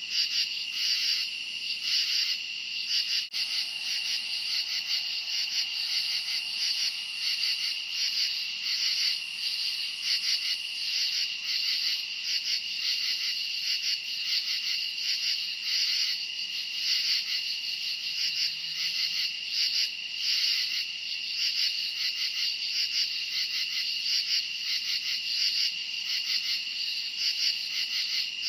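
Night chorus of crickets: a continuous high trill overlaid with chirps pulsing about twice a second.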